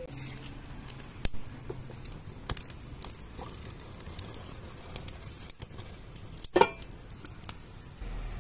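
Wood fire of thin sticks crackling and popping irregularly as it catches and burns, with one louder knock about two-thirds of the way through.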